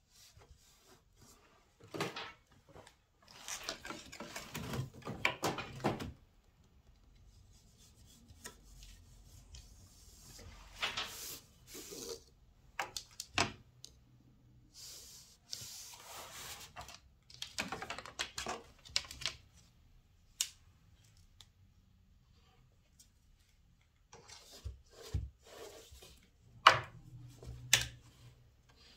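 Hand-weaving on a wooden floor loom: weft yarn rustling and rubbing through the warp threads, broken by sharp wooden clicks and knocks from the loom, in irregular spells with quiet gaps between.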